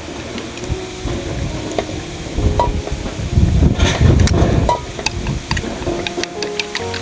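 Food being stirred in a sizzling pan, with scrapes and clicks of the utensil; the stirring is loudest about three and a half to four seconds in.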